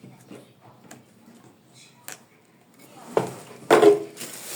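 Plastic fan parts and packaging being handled: scattered light clicks and a sharp click, two louder knocks or squeaks past the middle, then rustling near the end.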